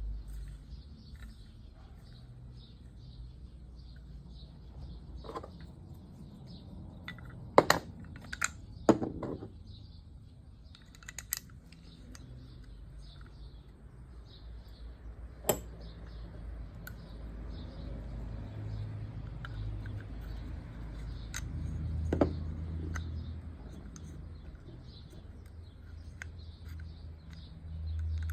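Scattered sharp clicks and clinks of small metal reel parts and tools being handled during the strip-down of a Penn fishing reel, with a loose run of them about a third of the way in. A faint high chirp repeats about twice a second throughout.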